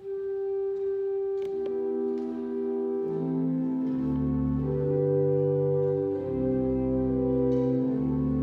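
Organ playing held chords: a single sustained note at first, more notes joining after about a second and a half, and deep bass notes coming in around three to four seconds.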